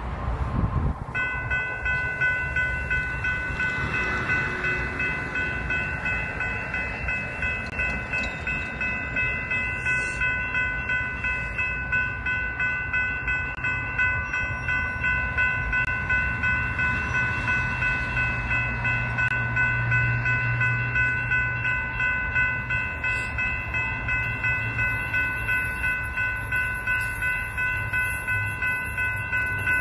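Railroad crossing warning bell starting to ring about a second in and ringing on steadily at about two strokes a second as the crossing activates.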